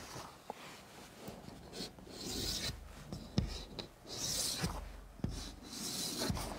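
Chalk writing on a chalkboard: a series of short scratchy strokes, each with a light tap of the chalk against the board, as the same curved stroke is drawn again and again.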